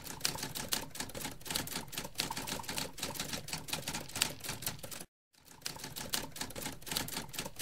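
Typewriter keys striking in a rapid, uneven run of clacks, as text is typed out. It stops for a moment about five seconds in, then carries on.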